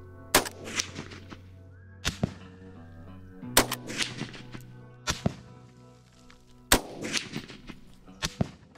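A series of hunting rifle shots fired while sighting in at a target: about five loud, sharp cracks roughly a second and a half apart, each followed by an echo tail, with a few fainter shots between them. Background music plays underneath.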